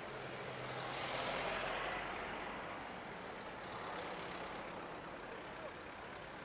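A motor vehicle passing on the street: engine and tyre noise swells to a peak about a second and a half in, then fades away.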